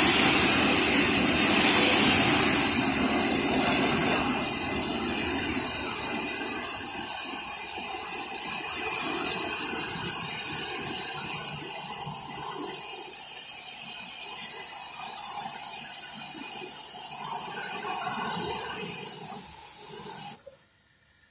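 High-pressure car wash pump spraying water: a steady, hissing jet that gradually grows quieter and then cuts off suddenly near the end.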